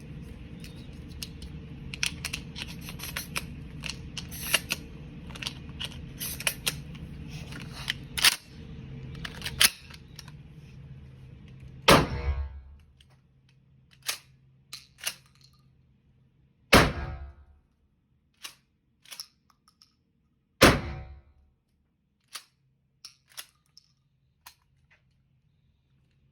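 Mossberg 590 pump-action 12-gauge shotgun fired three times, each shot a loud blast with a deep rumbling tail, with the sharp clicks of the pump action being worked between shots. Before the shots, many clicks and a couple of sharper cracks over a steady hum.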